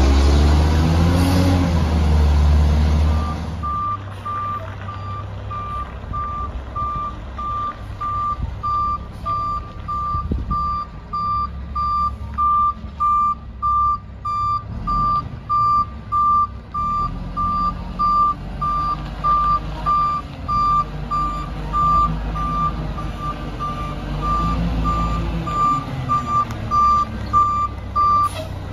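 A rear-loader garbage truck's diesel engine revs as the truck pulls away. About three and a half seconds in the sound changes to the truck's reverse alarm beeping steadily at a single pitch over the low running engine as it backs up.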